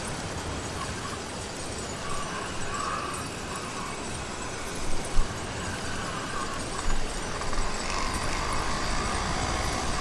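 Small two-stroke engine of a motorized bicycle (YD100 kit with a windowed piston) running steadily under way, with a sharp knock about halfway through and getting louder in the last few seconds.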